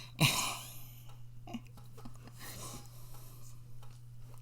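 A person's sharp breath out or sniff just after the start, then faint scattered clicks over a steady low hum.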